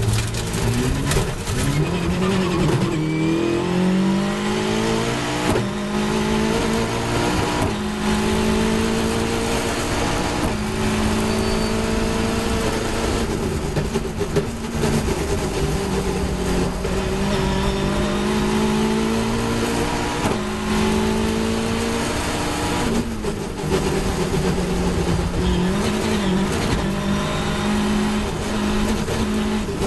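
Caterham 420R race car's engine, heard from the open cockpit, pulling hard through the gears. Its pitch climbs and drops back at each upshift in the first few seconds, then holds at high revs, with lifts and downshifts later on.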